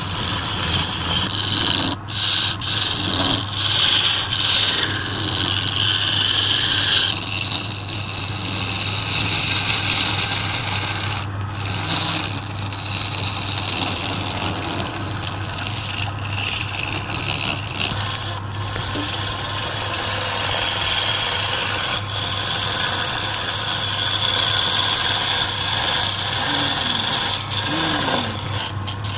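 Wood lathe running with a steady hum while a hand-held turning chisel scrapes and cuts the spinning wood. The scraping swells and fades as the tool is worked along the piece, breaking off briefly a few times.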